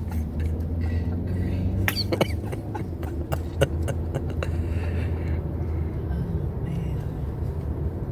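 A person hiccuping, a cluster of short sharp hics between about two and four seconds in, over the steady low rumble inside a Ford Edge's cabin.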